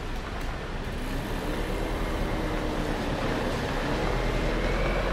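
A vehicle running with a steady low rumble that slowly grows louder, with a faint whine rising gently in pitch.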